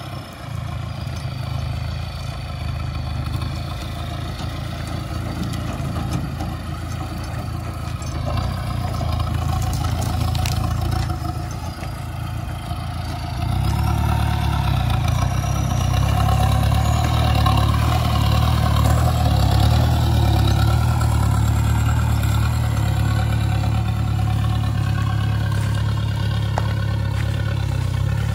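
A 4x4 pickup's drive running under load as it drags a tree stump on a chain over dirt, with a wavering whine above a low rumble. It gets louder about halfway through and stays there.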